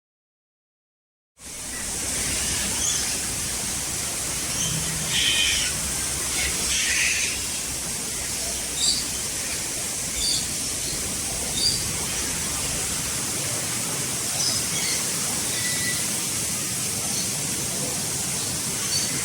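Outdoor bird-enclosure ambience: a steady high hiss with scattered short bird chirps and calls, starting about a second and a half in.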